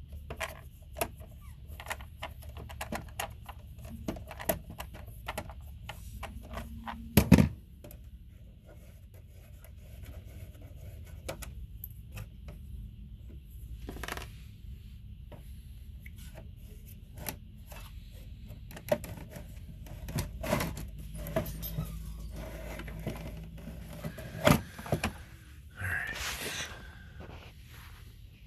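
Clicks, clinks and knocks of screws and metal parts as an RV 12 volt converter is unscrewed from its housing, with one sharp, loud knock about seven seconds in. Near the end, a scraping rustle as the converter slides out.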